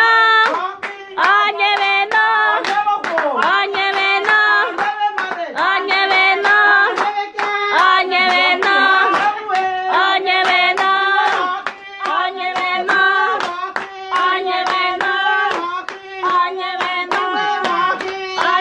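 A group singing together to steady rhythmic hand clapping.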